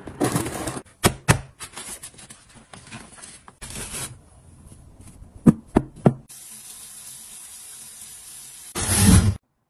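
Sharp knocks and scraping as an axe blade slices open a cardboard box, then a tap running steadily into a sink, with a louder burst near the end.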